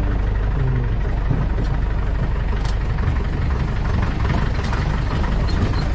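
Vehicle engine running steadily at low revs, with a few faint light rattles or clicks.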